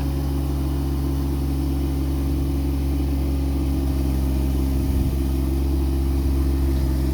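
Compact tractor's diesel engine running steadily, with a mini hay baler in tow.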